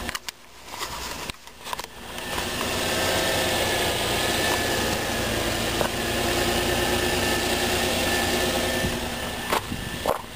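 2003 Nissan Maxima's 3.5-litre V6 idling steadily, heard close to the car's underside; the sound grows louder about two seconds in and drops back near the end, with a few bumps at the start.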